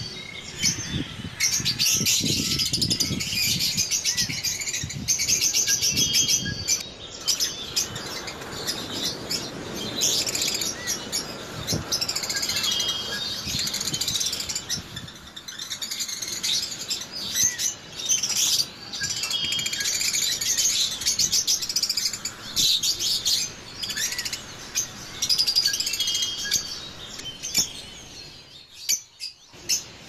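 Many small caged birds chirping and twittering continuously in an aviary, a dense chorus of short, high calls. The same stretch of chirping comes back about every six and a half seconds.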